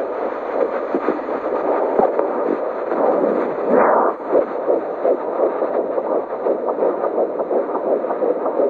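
Handheld LifeDop fetal Doppler's speaker playing a fetal heartbeat: a fast, rhythmic whooshing pulse over steady hiss.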